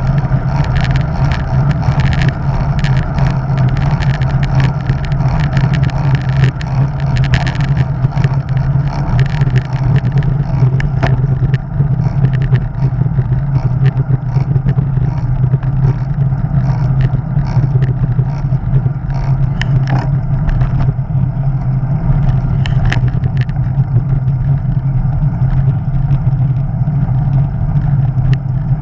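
Wind rushing over the microphone of a bicycle-mounted action camera while riding, heard as a steady, loud low roar mixed with tyre-on-tarmac road noise. Scattered small clicks and rattles from the bike and mount run through it, more of them in the first half.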